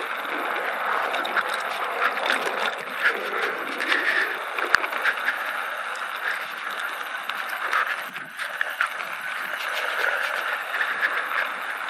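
Electric mountain bike rolling over a dirt singletrack: knobby tyres on packed dirt and loose stones, with steady small clicks and rattles from the bike as it goes over bumps.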